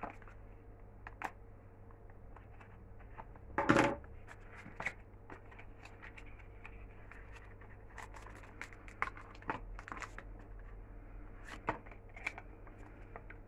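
Packaging being opened by hand: small box and wrapping rustling, scratching and clicking, with a louder burst of rustling about four seconds in and a run of small clicks near the end.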